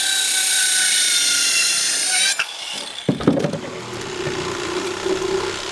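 Power tool cutting into wood: a high motor whine that sags slightly in pitch under load for a little over two seconds, then stops. A lower-pitched run with knocks and clatter follows about a second later.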